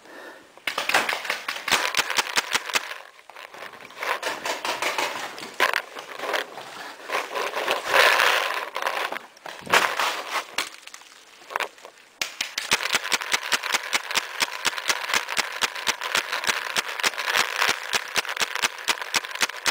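Paintball markers firing in rapid volleys, a fast rattle of sharp pops. From about twelve seconds in, the shots come in a steady, fast series of several a second.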